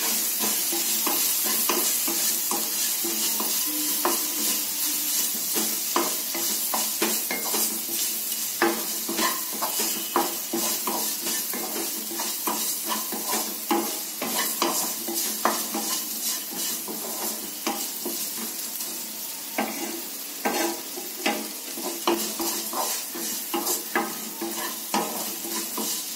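Chopped bitter gourd, tomato and onion sizzling in hot oil in a non-stick kadai, stirred with a wooden spatula that knocks and scrapes against the pan many times at an irregular pace.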